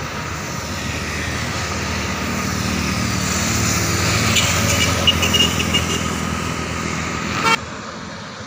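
Road traffic: a passing motor vehicle's engine and tyre noise growing louder toward the middle. Near the end the sound cuts off abruptly to a quieter hum.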